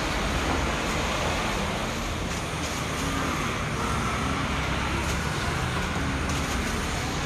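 Steady road traffic noise from a busy street: the constant sound of passing vehicles, with no single event standing out.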